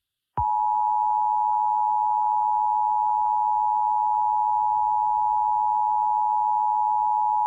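Emergency Alert System attention signal: a loud, steady two-tone electronic alarm (853 and 960 Hz) that starts about half a second in and holds without a break.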